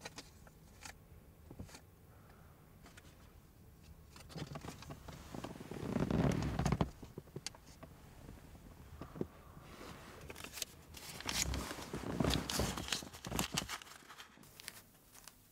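Rustling and handling noises with scattered clicks. The rustling swells twice, once about five to seven seconds in and again for several seconds near the end.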